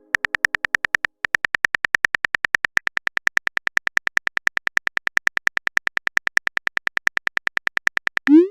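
Texting-story typing sound effect: a long run of short, even electronic beeps, about eight a second, with a brief pause about a second in. Near the end a short rising blip.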